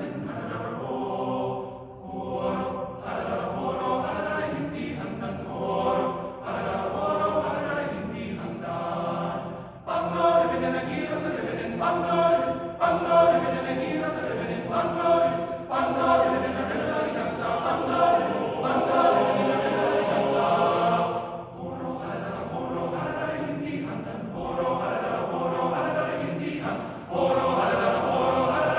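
Men's chorus singing in long, sustained phrases, with short breaks between phrases.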